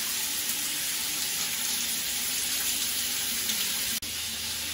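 Shower running, water spraying onto the tiled wall with a steady rushing hiss. It is a final drain test, after the blockage was cleared. The sound cuts out briefly about four seconds in.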